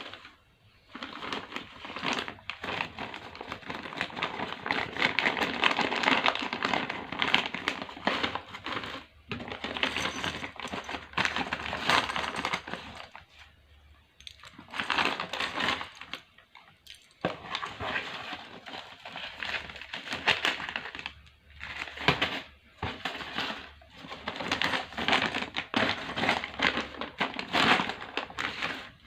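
Plastic packaging crinkling and small plastic parts of Panduit Cat 6 RJ45 connectors clicking as they are unpacked and separated by hand, with a few short pauses.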